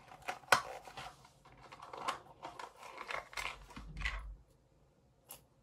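Toy packaging being handled and opened: scattered crinkling rustles and sharp clicks for about four seconds, then one last click near the end.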